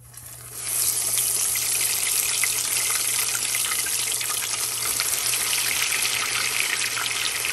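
Hot olive oil sizzling as parmesan-breaded zucchini rounds are slid into it to shallow-fry: a steady crackling hiss that starts about half a second in.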